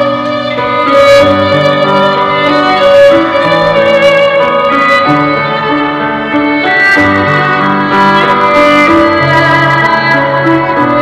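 Instrumental stage music: a slow melody of held notes changing every half second to a second.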